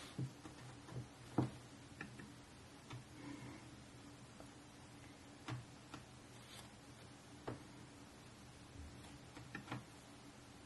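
Scattered soft clicks at uneven intervals from a MacBook Pro M1's trackpad and keys being pressed, with a quick pair near the end, over a faint steady room hum.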